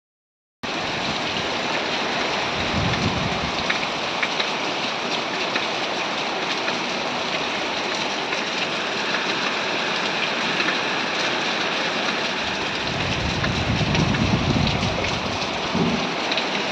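Steady downpour of cyclone rain, starting about half a second in, with low rumbles swelling briefly around three seconds in and again for about two seconds near the end.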